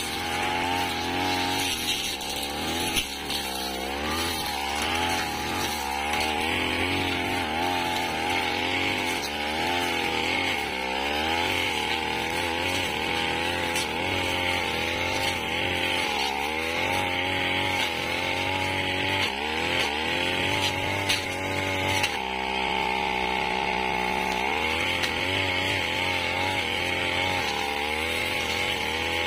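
Backpack brush cutter engine running at high revs as its blade cuts through wiry weeds and brush, the pitch dipping and recovering over and over as the blade takes load. A few sharp clicks.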